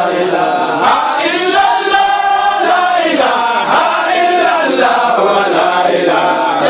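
A group of men chanting a religious chant together, one continuous melodic line that rises and falls in pitch.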